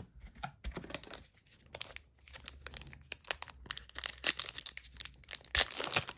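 Foil wrapper of a Yu-Gi-Oh booster pack crinkling as it is handled, then torn open across the top by hand, with a dense run of sharp crackles from about four seconds in.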